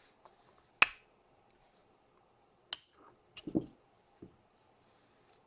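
Sharp metallic clicks and clinks of small steel parts and tools as the breech bolt pivot pin is worked out of a small Martini rifle's action. The loudest click comes about a second in, another near three seconds, and a quick run of clinks follows.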